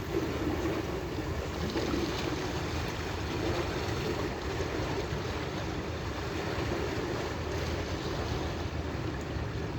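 Steady rush of wind and water, with wind buffeting the microphone.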